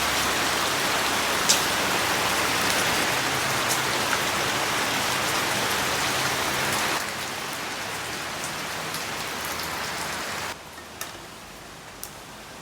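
Steady rain falling, a dense hiss with a few sharp ticks of drops. It drops abruptly in level about seven seconds in and again near the end, where it becomes fainter.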